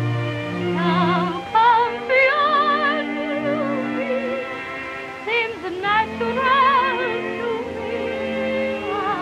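A woman singing a slow ballad in long held notes with a wide vibrato, over orchestral accompaniment, on an early sound-film recording.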